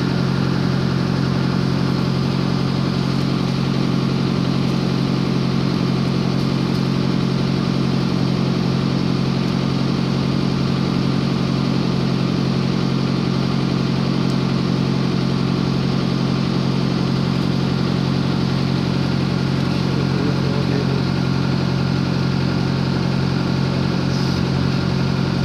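Diesel engine running steadily at idle, a constant low hum that does not change speed.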